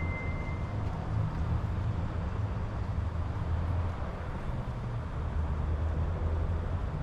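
Steady low outdoor rumble of street ambience. A thin high tone runs at the start and stops under a second in.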